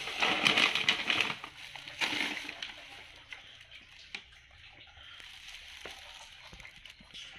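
Plastic cat-food bag and dry kibble rustling and rattling in two bursts, the first longer, then faint scattered crunching as a cat eats the kibble from a plastic bowl.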